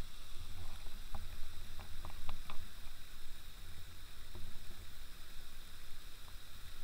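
Steady hiss with a constant high-pitched drone over it, low rumbling bumps, and a few sharp clicks about two seconds in.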